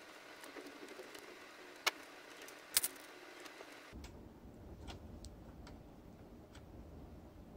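Small sharp clicks and taps of LEGO plastic parts handled by fingers while a string is tied around a tyre on the hull, the loudest about two seconds in and a quick double click just under three seconds. Fainter ticks follow over a low hum that comes in about four seconds in.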